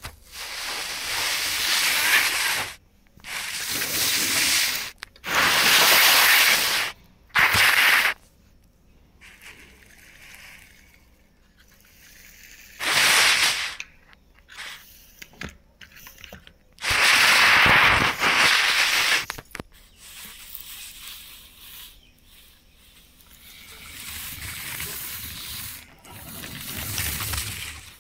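Plastic toy tractor and trailer pushed by hand over artificial grass: the wheels and the plastic grass blades rustle and scrape in several loud bursts of one to three seconds, with short pauses between pushes and softer ones near the end.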